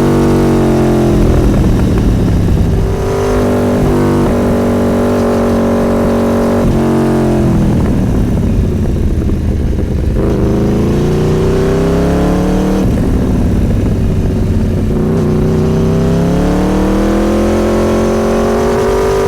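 Motorcycle engine running under way, its revs climbing and falling several times, with a few abrupt drops in pitch.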